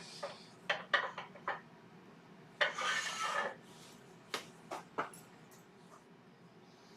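Metal tools clinking and knocking as they are handled at the lathe, a scattering of sharp clicks, with a short scraping rustle about midway; the lathe is not running.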